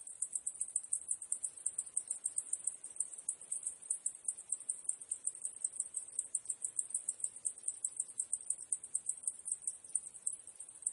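Cicadas calling: a continuous high-pitched buzzing chorus that pulses evenly about six or seven times a second.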